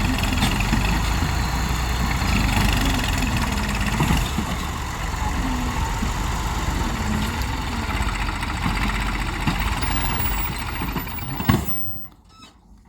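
Heavy diesel engine of earth-moving machinery running steadily, its pitch wavering a little. About eleven and a half seconds in there is a sharp knock, and the engine sound drops away abruptly.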